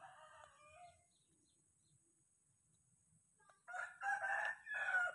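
A rooster crowing: one loud crow in three parts, a short note, a long one and a final one, starting near the end. A fainter call is heard in the first second.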